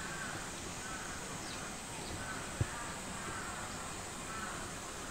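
Repeated harsh bird calls in the background, about one every two-thirds of a second, with a single low thump about two and a half seconds in.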